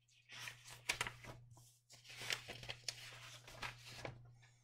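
Sheets of paper being handled and slid across a wooden desk: rustling and light scraping with a few sharp taps, over a steady low hum.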